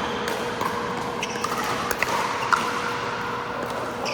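Pickleball paddles striking the hard plastic ball on an indoor court: several sharp pops, the loudest about two and a half seconds in, over a steady hum of the hall.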